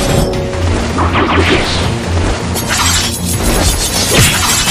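Dramatic fight-scene music with a low pulsing bass, overlaid with a series of shattering, crashing impact sound effects about a second apart.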